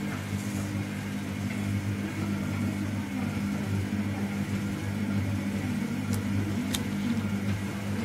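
Steady low electrical hum, even and unchanging, with two short sharp clicks about six and seven seconds in.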